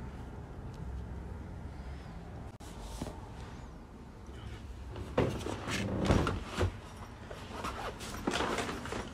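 A broom sweeping a hard laminate floor, with several brushing, scraping strokes in the second half over a low steady background rumble.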